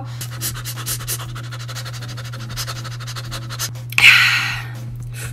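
Faint wet clicks of chewing and slurping a mouthful of noodles, then, about four seconds in, one short loud huff of breath through the open mouth: cooling food that is too hot.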